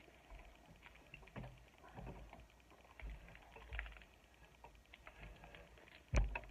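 Quiet handling noises at a table: scattered light rustles, clicks and soft taps of sweets and packaging being handled, with one sharp knock about six seconds in.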